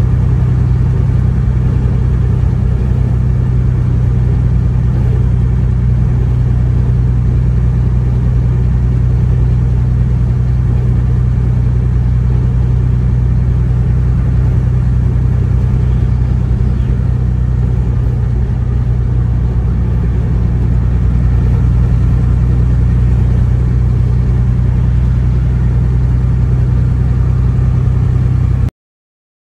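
Steady low drone of engine and road noise heard inside a vehicle's cabin while driving on a snowy highway. The sound cuts out abruptly about a second before the end.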